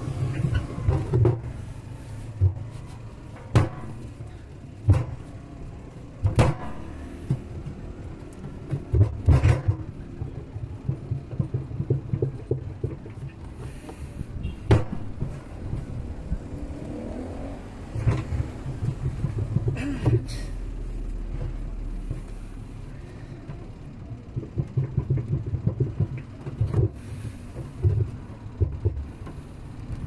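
Plastic washing-machine agitator parts being handled and fitted in the tub: irregular knocks and clatter over a low rumble.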